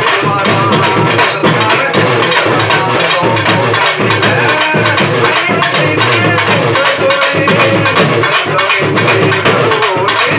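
Urumi melam, a Tamil folk drum ensemble, playing a fast, dense beat of rapid drum strokes, with bending, wavering tones above the drums.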